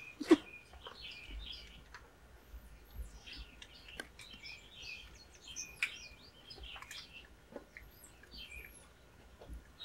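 Small birds chirping and twittering continually in short, high, hooked notes. A sharp click sounds just after the start, with a few lighter clicks later.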